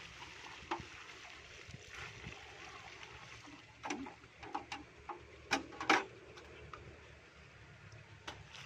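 Water poured from a pot splashing onto loose dug earth, then several sharp knocks and thuds, the loudest about six seconds in, as the pot is handled and a pickaxe is worked into the wet soil.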